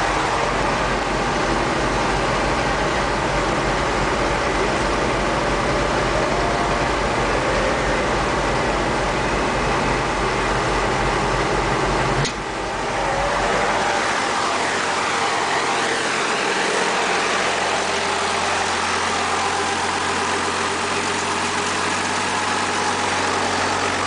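Engines running steadily while wheat is unloaded from a tandem grain truck. About halfway through the sound changes abruptly, and it settles into a steadier idle with a deeper hum.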